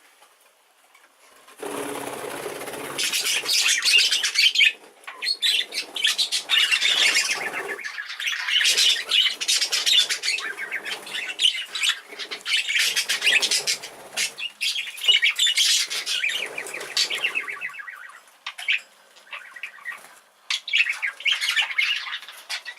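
A flock of young exhibition budgerigars flapping and chattering in an indoor flight, with busy wing flutter and calls. It starts suddenly about two seconds in and thins out near the end.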